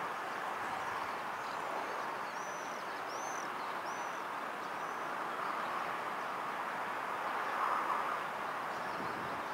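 Steady, distant running noise of an approaching container train hauled by an ET22 electric locomotive. A songbird chirps five or six times in the first half.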